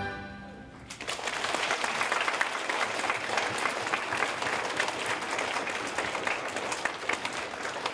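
Audience applauding, starting about a second in as the last sung note of a children's choir song dies away.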